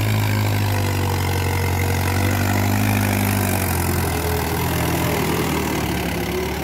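Mahindra Arjun 555 DI tractor's four-cylinder diesel engine running steadily under load as it pulls a tine cultivator through tilled soil. The engine grows a little louder as the tractor passes close by, then eases off slightly near the end.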